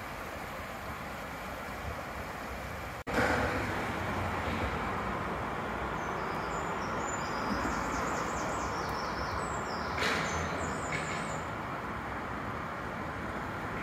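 Steady rumbling vehicle noise that jumps louder about three seconds in. In the middle comes a run of short, high-pitched stepping tones.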